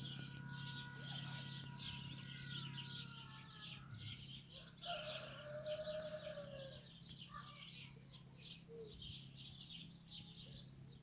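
Faint, dense chirping of small birds throughout, with a rooster crowing once about halfway through in a single arched call of about two seconds.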